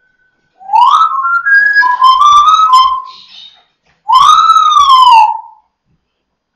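Congo African grey parrot whistling loudly: a phrase of short whistled notes that glides up and then steps between pitches, then, after a pause of about a second, one long whistle that rises and slowly falls.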